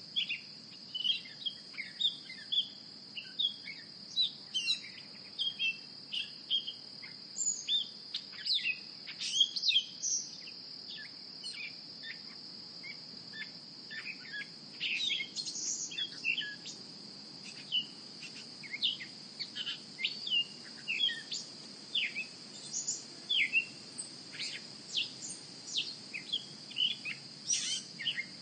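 Birds chirping and calling: many short, quick chirps, some louder than others, scattered throughout over a steady high-pitched hum.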